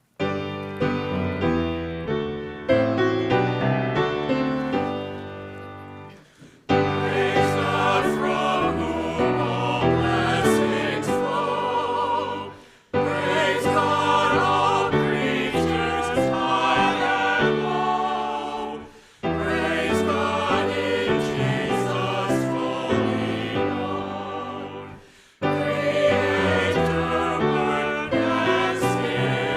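Church choir singing an offertory anthem with instrumental accompaniment. A short instrumental introduction comes first, the voices enter about seven seconds in, and the music moves in phrases with brief pauses between them.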